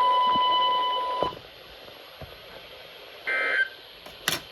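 Emergency Alert System broadcast heard over radio: a steady single alert tone near 1 kHz cuts off sharply about a second in. After a lull comes a short burst of higher, shrill data-like tones, then a sharp click near the end.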